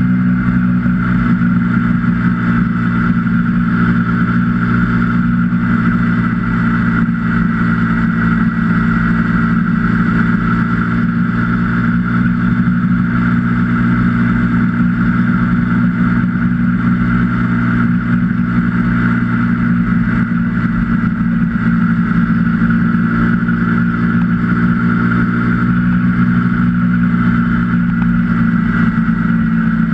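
KTM 125 Duke's single-cylinder four-stroke engine running at a steady cruising speed under wind and road noise. The engine note stays level throughout, with no revving or gear changes.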